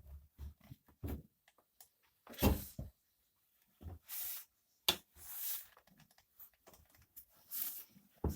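Hand work of levering a motorcycle tire onto a steel rim: intermittent rubber-on-metal scrapes and rustles, with a few sharp metallic clicks from the tools, one about five seconds in and one at the very end.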